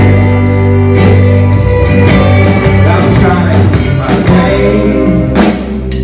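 Live band playing a slow song with keyboard chords, electric guitar, bass and drums.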